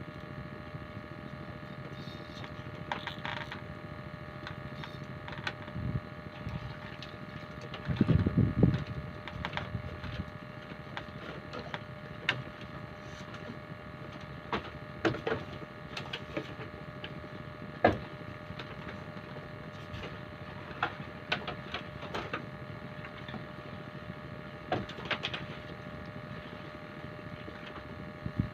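A small engine running steadily with an even hum, with scattered sharp clicks and knocks and a brief low rumble about eight seconds in.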